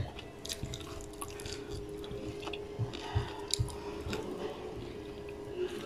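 Close eating sounds: fingers squishing and gathering rice on a ceramic plate, with soft chewing and a few light clicks, over a faint steady hum.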